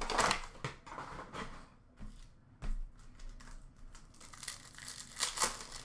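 Foil hockey card pack wrappers crinkling and tearing as packs are opened and cards handled, in a series of short rustles; the loudest come right at the start and again about five seconds in.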